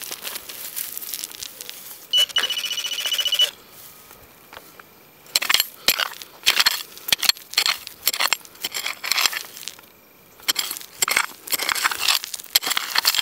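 Metal detector giving one steady, high beep for about a second and a half, about two seconds in. Then its search coil sweeps back and forth through dry grass and thistles in a run of short scraping rustles.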